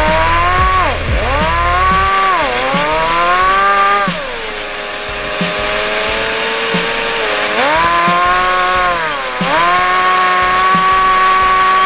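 A homemade Lego turbine, a rectangular rotor spun by a vacuum cleaner's suction, whining and revving like an engine. Its pitch rises and falls several times, sinks lower for a few seconds in the middle, then climbs and holds high near the end.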